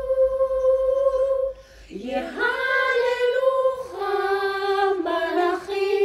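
Girls' voices singing a cappella, a slow melody on long held notes. A held note stops about a second and a half in; after a short break the voice slides up into the next phrase and then holds lower notes to the end.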